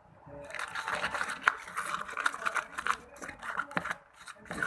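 Glue mixture for slime stirred with a stirrer in a small container: scratchy scraping with many small sticky clicks, starting about half a second in and pausing briefly a couple of times.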